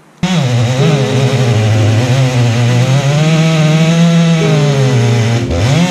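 Husqvarna chainsaw running at high revs as it cuts through a maple log, its engine pitch rising and falling under load. It comes in abruptly at full speed, and the revs drop sharply near the end before climbing back.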